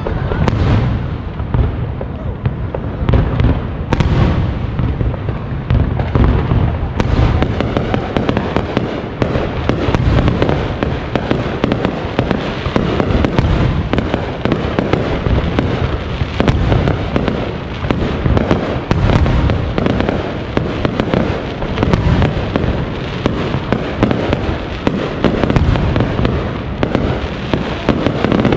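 Aerial firework shells bursting in rapid succession: a dense, continuous crackle of cracks and pops over a heavy low rumble of booms.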